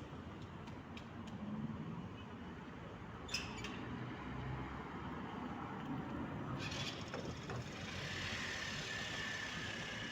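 City street traffic ambience: a steady wash of traffic noise with a couple of short sharp clicks about three and seven seconds in. From about eight seconds in a vehicle passes closer, with a faint high tone that slowly falls.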